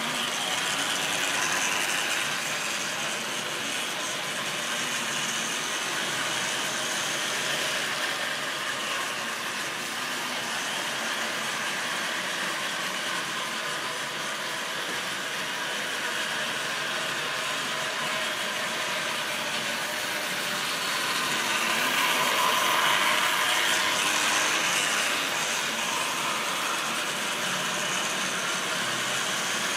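Model railway train running round the layout: a steady mechanical whirr and rattle of the locomotive's motor and the wagons rolling on the track. It grows louder as the train passes close, about two seconds in and again from about 21 to 25 seconds.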